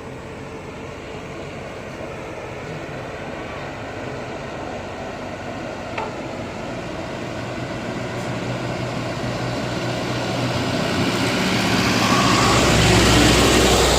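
Heavy diesel engine running and getting steadily louder, as if coming closer or working harder, with a single click about halfway through.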